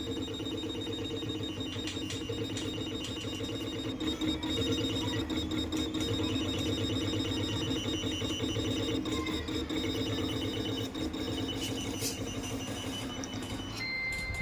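Xtool Anycut automatic key cutting machine running its motors as it traces the second side of the original key, a steady whine with a rapid stepping pattern. A high steady beep starts just before the end, as tracing completes.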